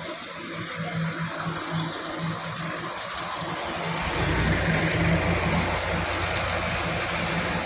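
Massey Ferguson 385 tractor's diesel engine running, easing a loaded sand trolley through a tight gate; about four seconds in it gets louder with a deeper rumble as the engine takes more load.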